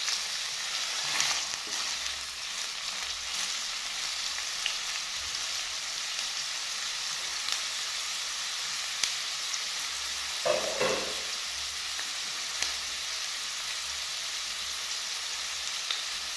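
Sliced red onions sizzling steadily in cooking oil in a stainless steel frying pan, stirred now and then with a wooden spoon that clicks against the pan. The onions are still pale, frying toward golden brown.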